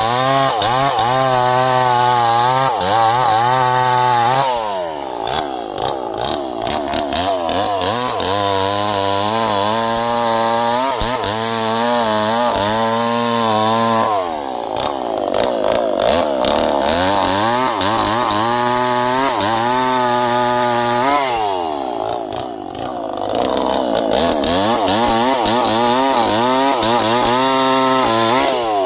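Two-stroke chainsaw running at high revs through repeated cuts in small sengon trees, its engine note wavering under load. It drops back to a lower, quieter note about five, fourteen and twenty-two seconds in, then revs up again for the next cut.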